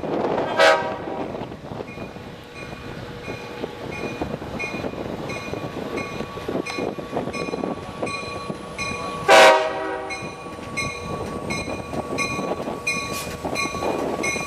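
GM DM30 dual-mode locomotive's Nathan K5LA horn sounding two short blasts, about nine seconds apart, over the rumble of the slowly approaching train. A grade crossing bell rings faintly about twice a second throughout.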